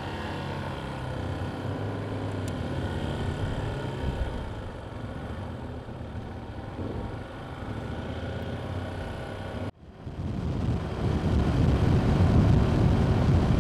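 Motorcycle engine running as the bike rides away, with a steady low engine note under light wind noise. About ten seconds in the sound cuts off abruptly and resumes as louder rushing wind and road noise at road speed.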